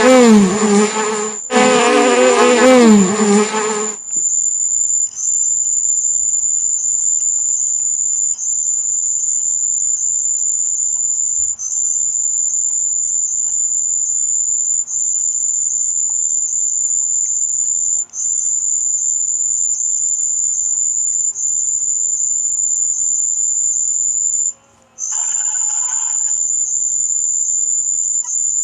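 Two loud pitched sound-effect bursts in the first four seconds, then a steady, high-pitched electronic tone that holds to the end, broken by brief dips and one short gap about 25 seconds in.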